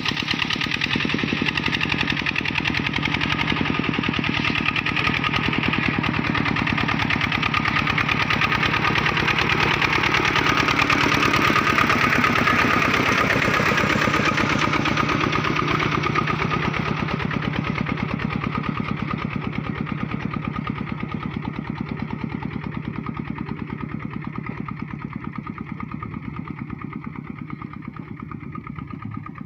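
Diesel engine of a homemade Kubota-powered tractor running steadily under load as it pulls a disc plow through a wet paddy. It grows louder up to about the middle as the tractor passes close, then fades as it moves away.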